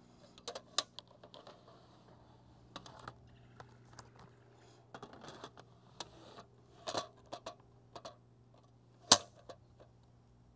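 Irregular clicks and knocks of hands working a large format view camera on its tripod, handling the camera back and its parts between exposures. The loudest knock comes about nine seconds in.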